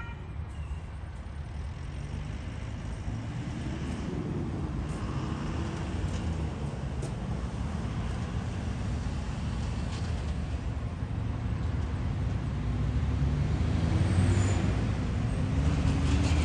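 Road traffic driving over a level crossing: car and truck engines running and speeding up as they pull away, with tyre rumble that grows louder toward the end.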